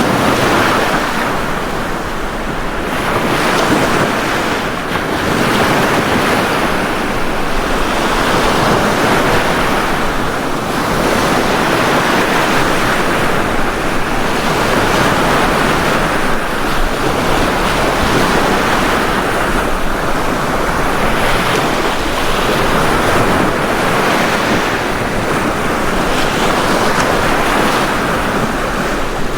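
Ocean waves breaking and washing up a beach: a steady rush of surf that swells and eases every three to four seconds.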